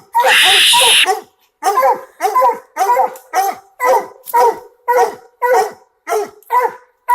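Coon-hunting hound barking treed at the foot of a tree, short chop barks about two a second in a steady run. A loud noisy rush covers the barks in the first second.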